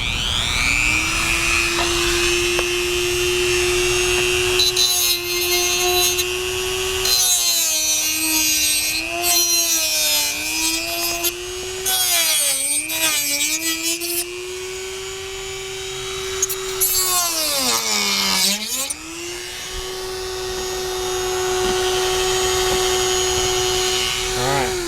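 Corded Dremel rotary tool with a reinforced cutoff wheel spinning up to a steady high whine, its pitch sagging and wavering several times as the wheel bites into and cuts through hard plastic gussets, then recovering when it runs free.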